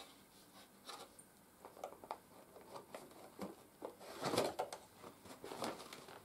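Paper dust bag being worked free and lifted out of a vacuum cleaner's bag compartment: scattered paper crinkles and small plastic clicks from the bag tab, with the loudest rustle about four seconds in.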